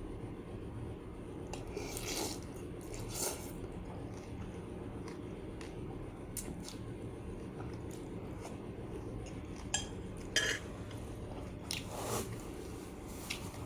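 Scattered sharp clinks and light knocks of dishes and utensils, with a couple of soft swishing, squishy sounds early on, over a steady low background hum.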